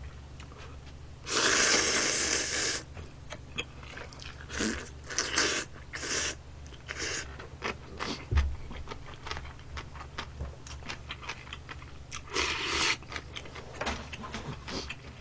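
A person blowing a long breath over a chopstick-load of hot ramen noodles to cool them, about a second in, followed by several shorter breathy puffs and close-miked eating sounds: chewing and wet mouth clicks.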